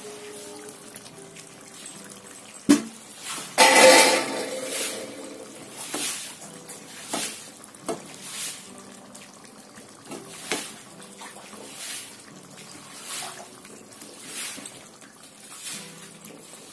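Chicken curry being worked in a pan: a sharp click, then a loud wet splash and clatter about four seconds in as tomato pieces are tipped into the curry, followed by a spatula stirring it with short wet splashes about every second and a half. Background music plays throughout.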